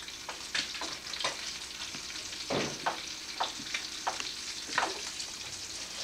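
Bacon sizzling in a frying pan on a stove, with a utensil scraping and tapping against the pan several times. The loudest scrape comes about halfway through.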